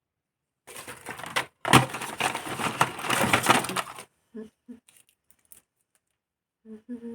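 Objects being handled and rummaged through, with a sharp knock about a second and a half in and a few clicks. Then a small DC motor hums in short spurts and runs steadily near the end, as a mini submersible water pump's wires are touched to a battery.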